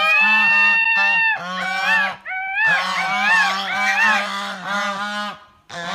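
Geese honking: one long call, then a rapid run of shorter honks that rise and fall in pitch, trailing off near the end.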